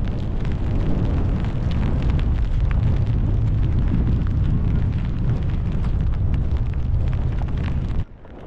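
Strong gusting wind buffeting the microphone: a loud, ragged low rumble that falls away sharply near the end.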